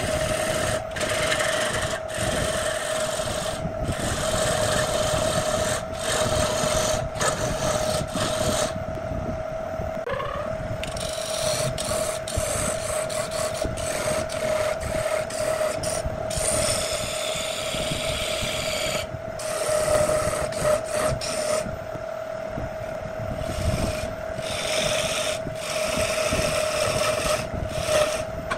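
Belt-driven wood lathe running with a steady hum while a hand-held turning tool cuts the spinning wood, a rough scraping hiss of shavings coming off that stops and starts many times as the tool is lifted and set back.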